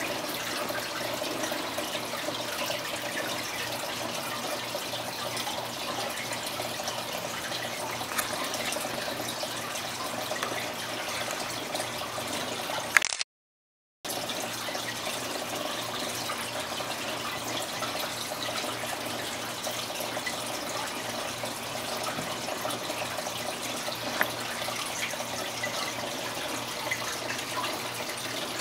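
Aquarium water trickling and bubbling steadily, with fine crackle. The sound cuts out completely for about a second near the middle, then carries on the same.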